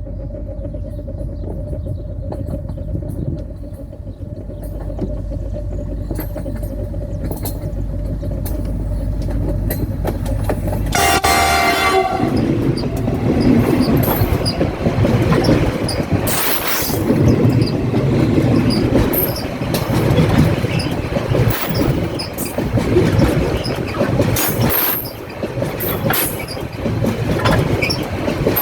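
Loaded freight train led by a diesel locomotive coming closer with a steady low rumble, its horn sounding briefly about eleven seconds in. The train then passes right over the microphone with loud rumbling and rapid wheel clatter, with a few brief high wheel squeals.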